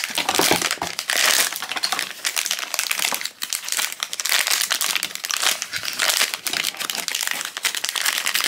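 Silver foil blind-box pouch crinkled in the hands as it is worked open, a dense run of crackling.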